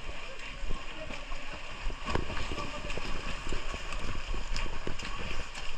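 Swimming-pool water splashing and sloshing as swimmers kick and stroke, with a dense run of small splashes and knocks.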